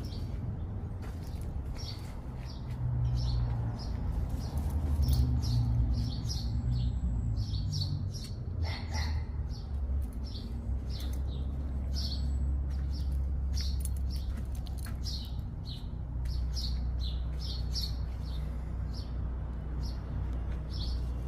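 Small birds chirping repeatedly in short, high calls over a low steady hum.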